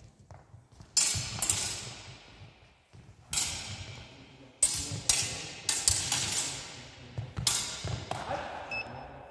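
Steel sidesword blades clashing during a fencing exchange: sharp metallic strikes in quick flurries, about nine in all, each ringing on briefly.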